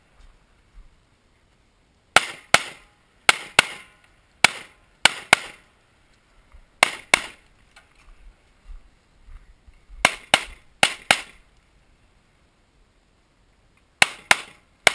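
Pistol shots fired in quick pairs about a quarter second apart, each pair followed by a pause of one to three seconds: a Limited-division pistol shot on a USPSA stage, typically two shots per target.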